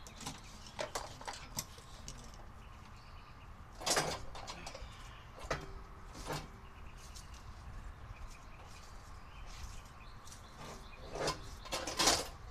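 Rubber air hose and its fittings being handled and moved about: scattered clicks and knocks, with two short, louder noisy bursts, one about four seconds in and one near the end.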